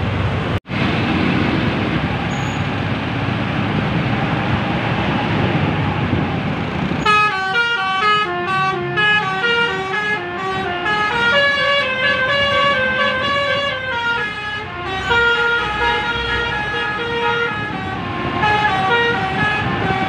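Street traffic with engines running, then about seven seconds in a bus's multi-tone telolet horn starts playing a melody of quick stepping notes that goes on to the end.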